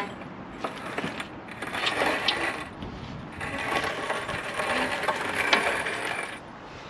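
Rear subframe with the engine block still attached being pushed along on small wheeled dollies, the dolly casters rolling and rattling on the floor with scattered clicks in two pushes, the second longer.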